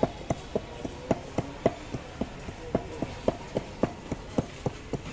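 Steady rhythmic knocking, about three to four strokes a second, some with a short ring: a utensil striking a bowl as wood apple (kodbel) bhorta is mashed and mixed.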